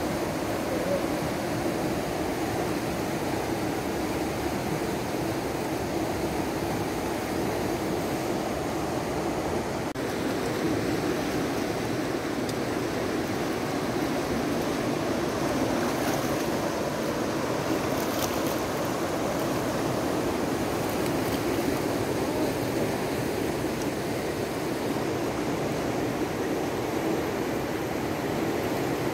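Fast-flowing mountain river rushing over rocks: a steady, even sound of moving water.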